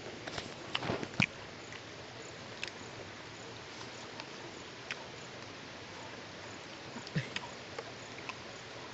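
Scattered soft clicks and small knocks of people eating, bunched about a second in and again about seven seconds in, over a steady low hiss.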